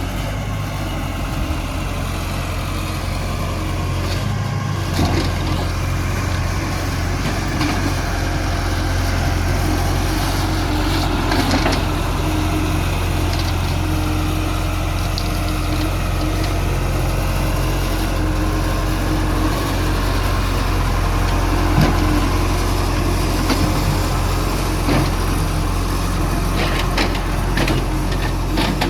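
CASE excavator's diesel engine running steadily, with a few short knocks here and there.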